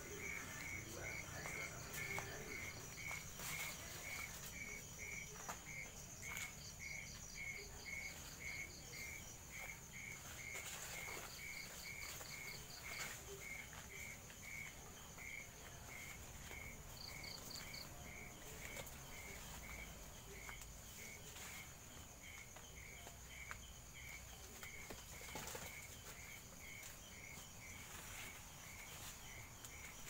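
Night chorus of insects and frogs: a steady high trill, a regular chirp about twice a second, and short pulsed bursts now and then, with a few rustles in the vegetation.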